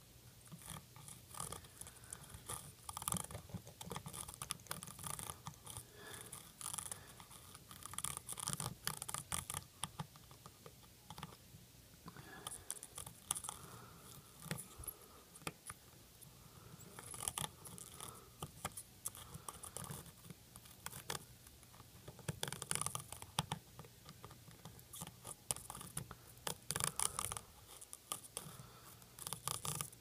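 Soldering iron tip scraping back and forth along the dock connector's pins, in irregular runs of short scratches with brief pauses, as low-melt alloy solder and flux are worked into the joints to desolder the connector.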